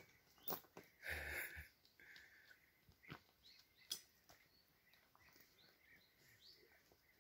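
Quiet outdoor ambience with faint small birds chirping and a few light clicks, and a short noisy rush about a second in.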